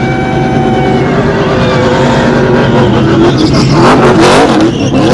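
NASCAR stock cars racing around the oval, several V8 engines running at high revs at once. The sound swells to its loudest as a pack of cars goes by about four seconds in, their pitch bending as they pass.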